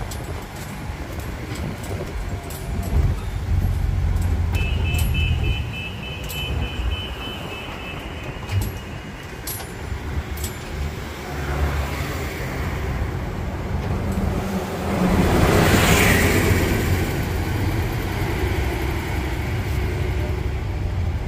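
Tourist road train running, heard from its open carriage: a steady low engine rumble with the carriages rolling and rattling, sharp clicks in the first few seconds and a faint thin high whine for several seconds. A broad rush of noise swells and fades around the middle of the stretch.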